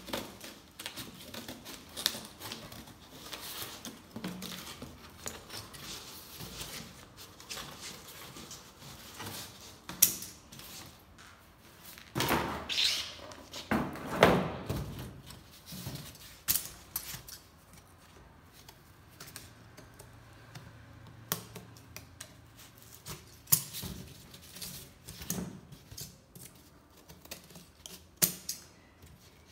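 Scissors snipping through cardboard in a series of short sharp cuts, with rustles and light knocks as the cardboard is handled. A louder stretch of scraping comes about halfway through.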